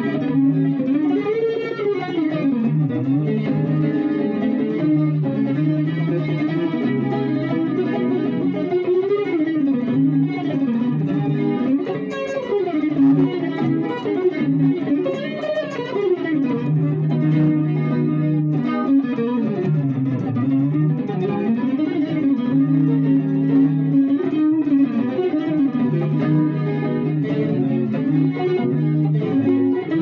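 Electric guitar playing held chords with moving melody notes above them, the notes ringing into one another.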